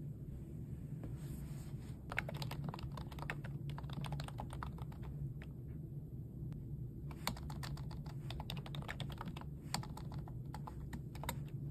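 Typing on a computer keyboard: quick runs of key clicks starting about two seconds in, a short lull, then another run from about seven seconds in. A steady low hum lies underneath.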